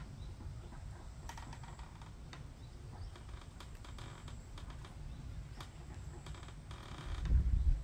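Faint, irregular small clicks and ticks over a steady low rumble, with a louder low thump near the end.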